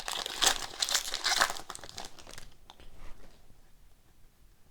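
A hockey card pack wrapper being torn open and crumpled, crinkling loudly for about two and a half seconds, then dying down to a few faint light ticks.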